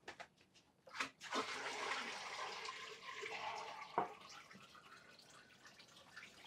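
A soft water-like rush for a couple of seconds, then a single knock about four seconds in as a cup is set down on a wooden table.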